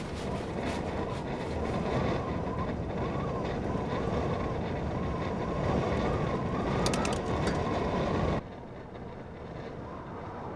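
Blizzard wind howling around a camper van, a steady rush with a thin wavering whistle; about eight seconds in it drops suddenly to a quieter rush.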